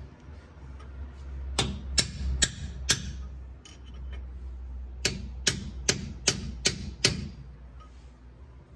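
Hammer blows on a drift, knocking a pinion bearing race out of a Ford Super Duty rear axle housing: about four sharp metallic strikes with a ringing tail, a short pause, then six more in quick succession.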